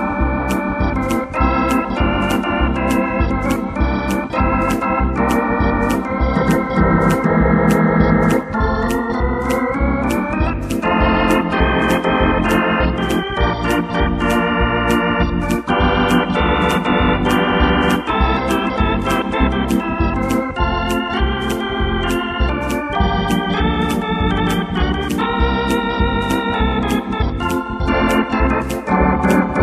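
Arranger keyboard played with an organ voice: sustained chords and a melody changing every second or two over a steady auto-accompaniment beat, with a sharp high tick on each beat.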